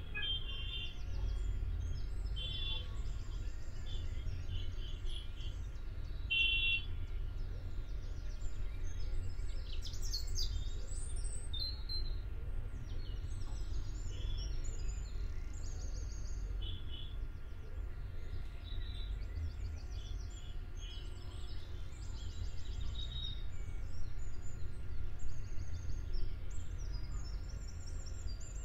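Small birds chirping again and again in short high calls, over a steady low rumble.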